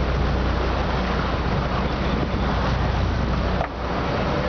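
Boat engine running in gear with a steady low rumble, under wind on the microphone and water rushing along the hull; the noise drops out briefly near the end.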